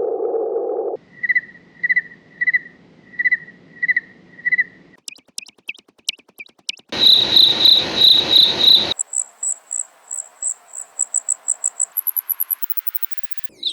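Cricket chirp sound effect digitally modified into a quick run of variations. It starts as a steady low hum, then becomes evenly spaced chirps and a few thin clicks, then loud chirps over a hiss. It ends in chirps pitched higher and higher and coming faster, finishing with a very high, short squeak.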